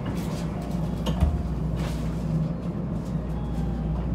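Steady low hum inside a stationary shinkansen carriage, with a couple of light knocks about a second in.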